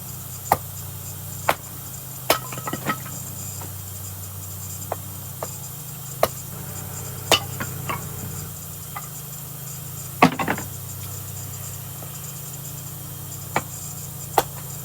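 A 3-pound True Temper Flint Edge Kelly Works Connecticut-pattern axe splitting kindling: about a dozen sharp chops and knocks of the axe into wood, irregularly spaced. The loudest comes about ten seconds in and is followed by a brief rattle.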